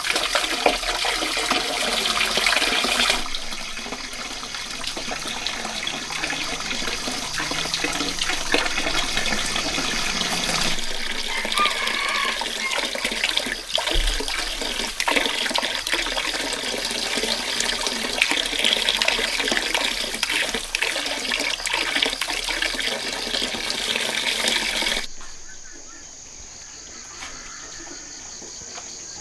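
Dense crinkling and rustling of thin plastic bags worn as gloves, with small clicks as hands sort roasted fruit halves in a woven basket. About 25 seconds in it gives way to a quieter outdoor backdrop with a steady high insect drone.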